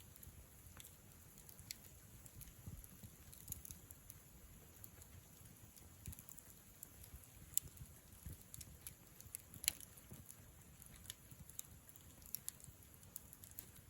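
Wood campfire burning: firewood crackling with scattered small pops over a faint low rustle of flame, and a couple of sharper pops past the middle.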